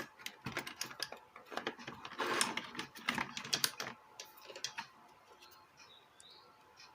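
Rapid small clicks and taps from handling a Bluetooth speaker's driver while checking it, bunched in the first four seconds and then thinning to faint ticks.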